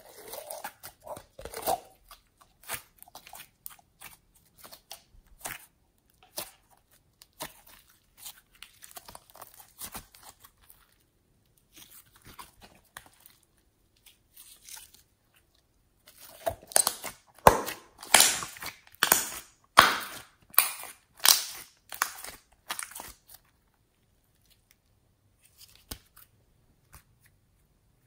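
Sticky glitter slime squeezed and pressed by hand, giving short wet pops and clicks. They are sparse at first, then a louder, regular run of about two pops a second comes in the second half.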